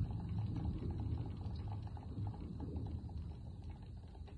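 Rain pattering in small, irregular drops against a low rumble of thunder that fades slowly over a few seconds.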